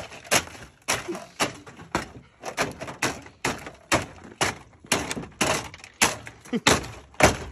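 Work boots stomping repeatedly on a stripped Dodge Neon's dashboard and instrument-cluster circuit board, breaking the plastic. The hard thuds and cracks come about two or three a second.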